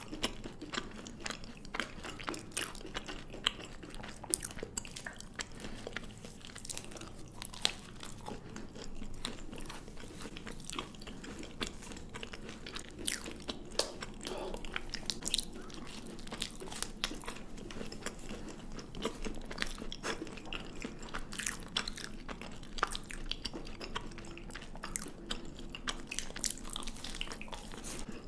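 Chocolate being bitten and chewed close to the microphone: many short, sharp crunches and clicks at an irregular pace.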